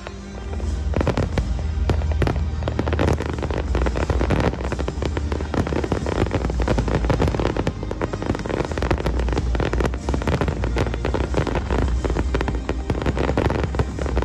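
Aerial fireworks bursting in rapid, overlapping bangs and crackle, many shells at once over a deep rumble, getting louder about a second in. Background music plays underneath.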